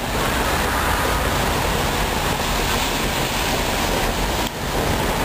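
Steady city street noise: traffic on wet pavement, an even hiss over a low rumble, which dips briefly about four and a half seconds in.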